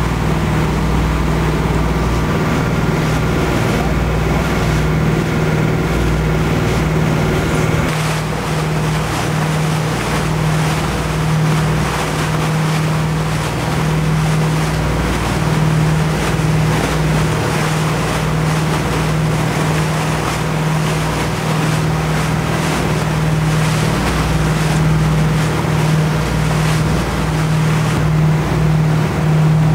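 A fishing boat's engine running with a steady low hum, with wind on the microphone and the rush of water around the hull.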